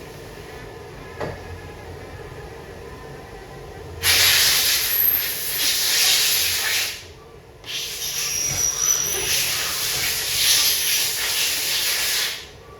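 Two long hissing blasts, about three and four and a half seconds long, with a brief pause between them, starting about four seconds in.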